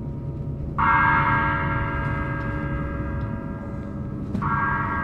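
Background music: two struck gong- or bell-like tones, one about a second in and another about four seconds in, each ringing on over a low steady drone.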